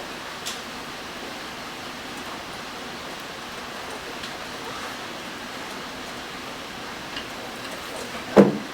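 Steady hiss of room noise with a few faint small clicks, and one loud knock near the end.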